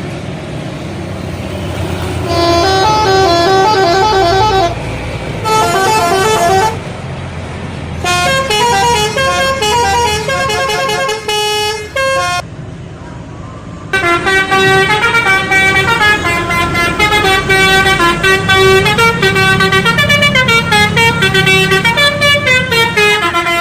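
Indonesian bus telolet horn playing quick stepped multi-note melodies in several short bursts, then a longer run of about ten seconds in the second half. A low bus engine rumble runs underneath.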